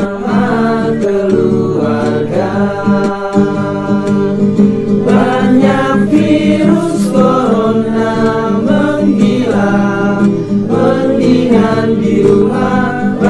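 Virtual choir of many voices singing a song together over instrumental accompaniment, the notes held and shifting steadily without a break.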